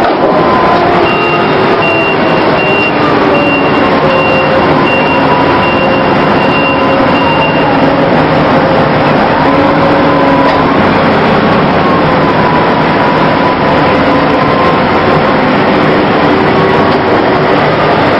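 Mobile harbour crane running loud and steady while it works, its machinery tones wavering slowly up and down in pitch. A warning beeper sounds at an even pace, about three beeps every two seconds, from about a second in until about eight seconds in.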